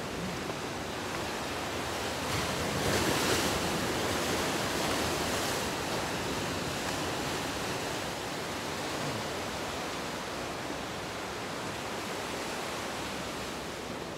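Ocean surf washing in among shoreline rocks, a steady rush that swells louder for a few seconds about three seconds in.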